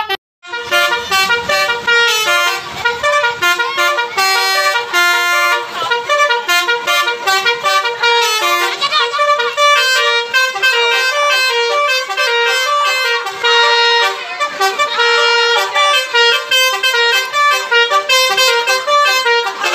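Basuri 'telolet' multi-tone bus horn playing a fast tune of short, quickly changing notes, nearly without a break, starting about half a second in.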